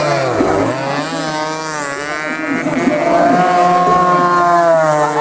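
Several racing motorcycles passing close at high revs. The pitch drops as one goes by early on, then other engines wind up and hold high revs as the pack passes.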